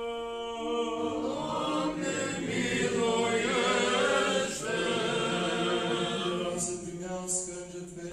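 Orthodox liturgical chant sung by a group of voices. One voice holds a note at first; others join about a second in and sing together, then it thins back to a single sustained voice near the end.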